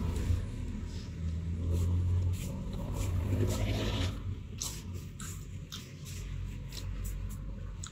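Close-up chewing and crunching of crisp unripe green mango dipped in shrimp paste, with short irregular crunches and wet mouth clicks in the second half. A low steady rumble underlies the first half.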